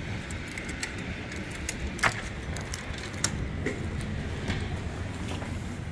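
Clicks and clinks of a glass entrance door's metal handle and latch as it is opened and walked through, the sharpest about two seconds and about three seconds in, over a steady low rumble of road traffic.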